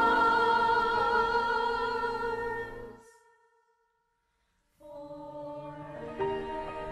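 A choir holds a final sung chord that fades out about three seconds in. After nearly two seconds of silence, soft instrumental music begins.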